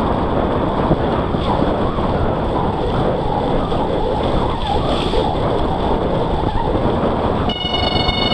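Mountain bike riding through mud: wind rush on the microphone and tyre noise over the wet trail. Near the end a steady high-pitched squeal of several tones starts, the sound of mud-fouled disc brakes dragging.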